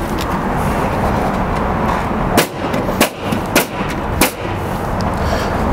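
A pneumatic coil roofing nailer fires four times, about half a second apart, driving roofing nails through an asphalt starter shingle. A steady background noise runs underneath.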